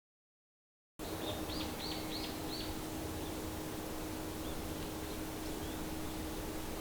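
A small songbird gives four quick high chirps about a second in, then a few fainter calls, over steady outdoor background noise with a low, constant hum.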